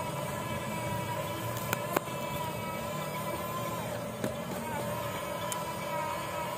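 Toy RC excavator's small electric motors and gears whining at a steady pitch that dips briefly a few times as the load changes, with a few sharp clicks.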